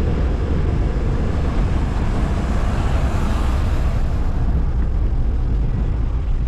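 Road noise while cycling: wind rumble on the microphone with passing traffic, and a vehicle going by that swells and fades about three seconds in.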